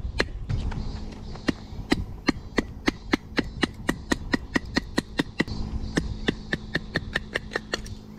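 Batoning with a Belmont Yamato BM-164 stainless-steel field knife: a log strikes the knife's spine again and again to drive the blade down through a stick of firewood. The result is a steady run of sharp knocks, about two to three a second, kept measured.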